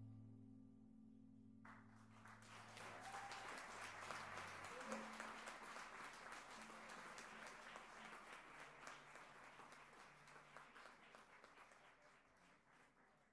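Quiet audience applause, starting about two seconds in over the last held notes of music, then fading away near the end.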